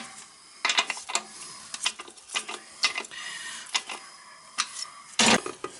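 Irregular sharp clicks and knocks from the new toilet's tank and its bolt hardware as the tank is wiggled and its bolts are worked for tightness, with a louder knock about five seconds in.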